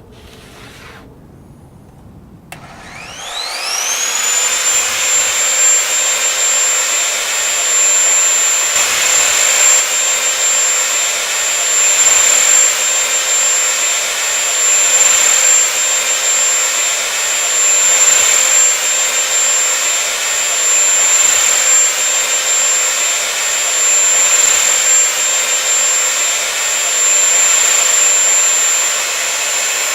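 Bosch GTS1031 table saw's universal motor switched on, its whine climbing quickly in pitch as the blade spins up about two and a half seconds in. It then runs steadily at full speed with a high whine, and the pitch starts to fall at the very end as it winds down.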